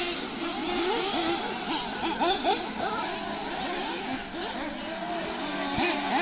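Several nitro RC cars racing, their small engines revving up and down in quick, overlapping rises and falls as they accelerate and brake around the track.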